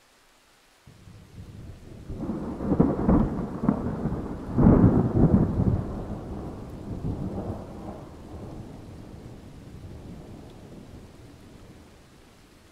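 Rolling thunder: a low rumble that starts suddenly about a second in, crackles loudest for a few seconds, then slowly dies away.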